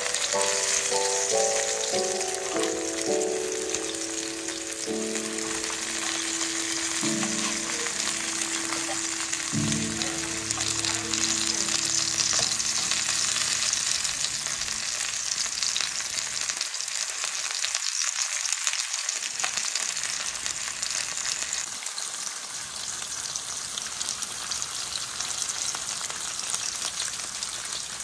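Food frying in hot oil, a steady sizzle. A few soft, held music notes play over it in the first half and fade out.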